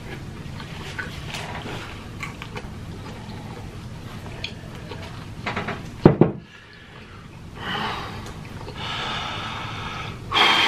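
Close-up eating sounds of pizza being chewed: small wet clicks and smacks of the mouth. About six seconds in there is a short, loud low thump, and near the end a hiss of breath that swells louder.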